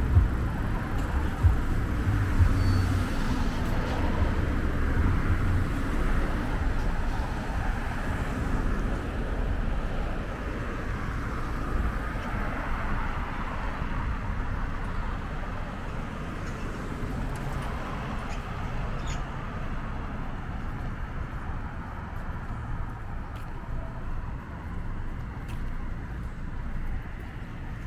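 Road traffic noise: a vehicle's low rumble loudest at the start and fading away over the first several seconds, leaving a steadier, quieter wash of traffic.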